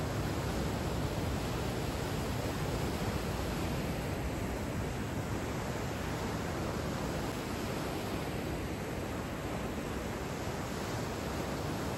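Breaking wave in a Wavegarden wave pool: whitewater churning and rushing across the pool in a steady hiss.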